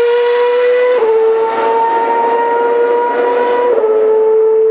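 Formula One car's high-revving 2.4-litre V8 engine at full throttle, accelerating away, its high steady note dropping sharply at upshifts about a second in and again near the end.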